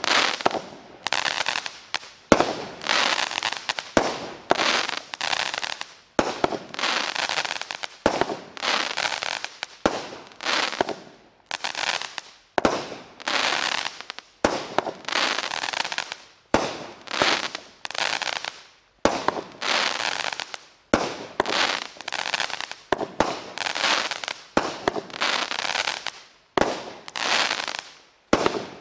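World Class Fireworks 'Road Trip' multi-shot cake firing a steady sequence of shots, roughly one every second or so. Each is a sharp report followed by a crackling burst that fades before the next.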